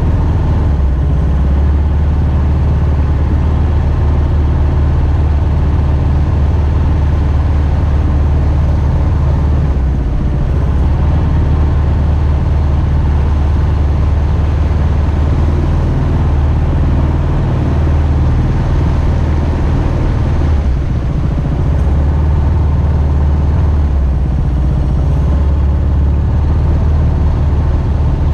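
Mokai jet boat's Subaru EX21 single-cylinder engine running steadily through its water-cooled muffler, with a brief slight drop in level about three-quarters of the way through.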